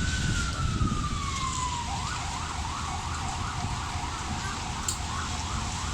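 Emergency vehicle siren: one long falling wail, then a fast rising-and-falling yelp, about two or three cycles a second, over a low rumble.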